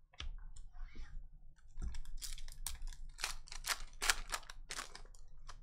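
A trading-card pack being torn open by hand, its wrapper crackling and rustling in a dense run of crisp snaps for about three seconds from roughly two seconds in, after a couple of soft knocks on the table.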